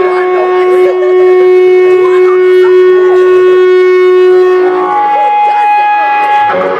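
Electric guitar amplifier feedback: one loud, steady held tone for nearly five seconds, then jumping to a higher pitch for a second or so before cutting off.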